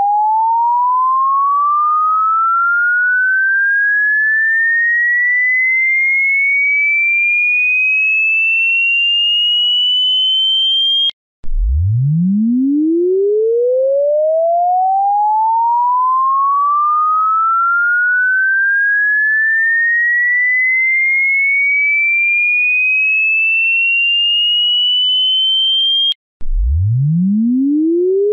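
An electronic sine-wave sweep tone: one pure tone gliding steadily upward from a low hum to a high whistle over about fifteen seconds, then cutting off and starting again from the bottom. It cuts off and restarts twice, about eleven seconds in and near the end.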